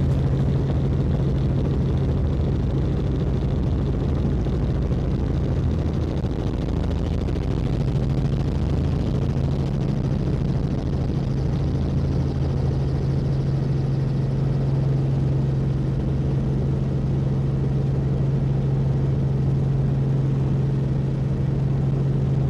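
Helicopter in flight: a loud, steady engine and rotor drone with a constant low hum.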